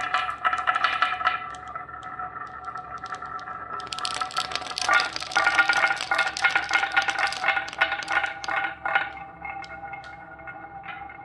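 Marbles clicking and rattling as they roll and knock down a marble run track, with a dense flurry of clicks midway that thins out toward the end.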